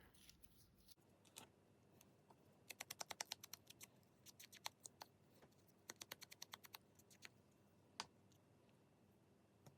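Faint runs of rapid light clicks, several a second, in three short bursts with a single click near the end.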